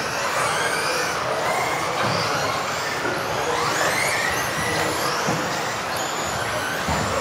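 Several electric 1/10 RC offroad buggies racing together: overlapping motor whines that rise and fall in pitch as the cars accelerate and brake, over a steady noisy background. A few dull thuds come in about five seconds in and near the end.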